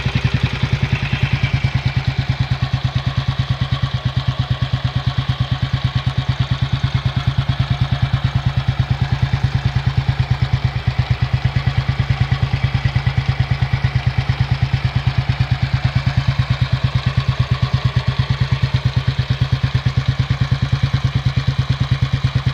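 Freshly rebuilt Royal Enfield Bullet 500 single-cylinder four-stroke engine idling through its chrome exhaust, an even, steady beat of exhaust pulses.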